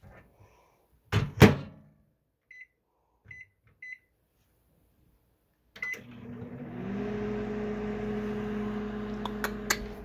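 Microwave oven door shut with a loud clack, then three short keypad beeps as the time is entered and a beep as Start is pressed. The oven then starts running: a steady hum that glides up in pitch as it starts, with a few clicks near the end.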